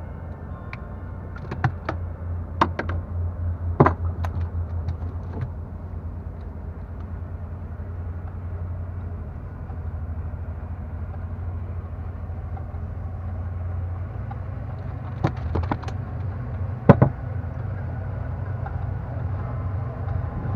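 Low, steady rumble of a boat engine running, with a pulsing beat. Sharp knocks and clatters of fish and tackle being handled in the wooden boat: several in the first four seconds, more about fifteen seconds in, the loudest about seventeen seconds in.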